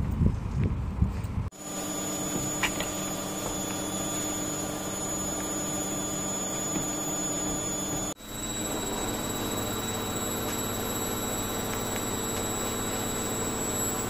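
A steady machine hum with a thin high whine. It breaks off for an instant about eight seconds in and then carries on with a slightly different pitch. It is preceded by a second and a half of louder, uneven outdoor noise.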